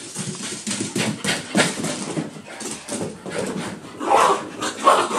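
Two small white Maltese-mix dogs play-fighting on a couch after a bath: irregular scuffling and scrabbling on the cushions and blanket, with short dog vocal sounds, loudest about four and five seconds in.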